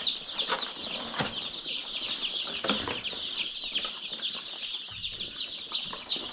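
A crowd of day-old chicks peeping nonstop, many short, high, falling peeps overlapping, with a few light knocks in the first three seconds.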